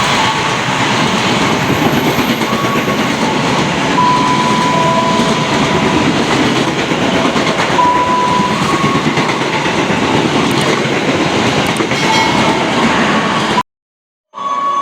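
Train running along the track close by: a steady rumble and clatter of wheels on rails, with brief high whining tones now and then. The sound cuts out for a moment near the end.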